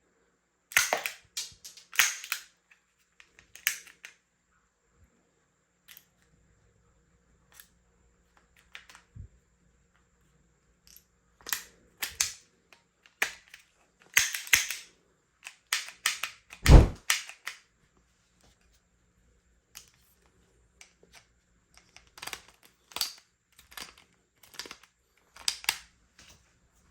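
A plastic toy gun being handled, cocked and fired, making sharp clicks and clacks in irregular clusters, with one heavier thump a little past the middle.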